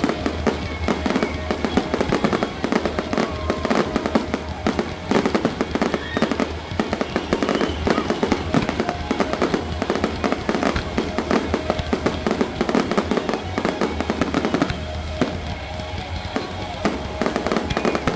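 Aerial firework shells bursting in a dense, rapid barrage of bangs and crackles.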